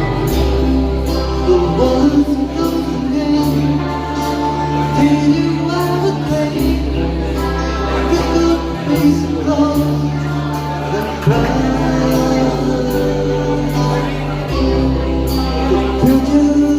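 Background music with a singing voice over long held bass notes that change every few seconds.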